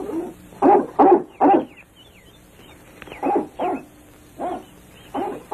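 Large dog barking in short woofs: a quick run of three in the first couple of seconds, then several more spaced out. Faint bird chirps sound in the gap between them.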